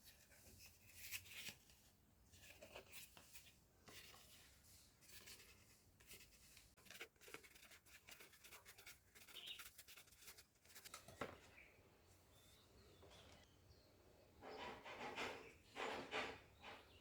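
Faint scratching, rubbing and clicking of cardboard being worked by hand, with a few louder scraping passes near the end.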